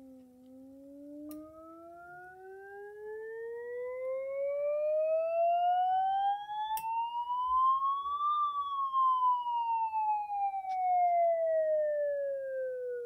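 A phone tone-generator app's test tone sweeping: one pure tone glides steadily up from low to high pitch over about eight seconds, then glides back down. Fainter higher tones follow the glide, jumping up in pitch twice on the way up.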